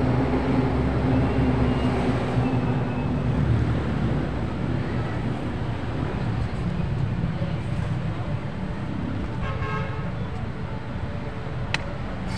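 A motor vehicle's engine running close by, loudest in the first few seconds and then easing off, with a brief horn toot about ten seconds in. A single sharp click near the end as a plastic bottle-cap piece is set down on the wooden dama board.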